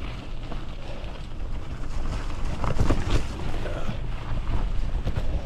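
Wind rumbling on a GoPro's microphone while a gravel bike rolls over a muddy clay and leaf-covered dirt road, with a louder, bumpier patch about three seconds in.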